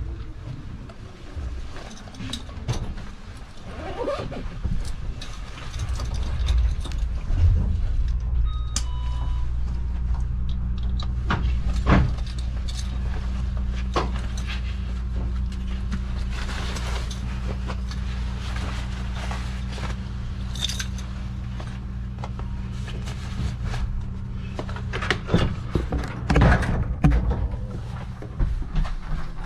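Stationary electric train at the platform: a steady low machinery hum from its onboard equipment sets in about six seconds in, with scattered clicks and knocks and two short steady tones around nine seconds. Near the end, sharp knocks and rubbing of the camera being handled and carried.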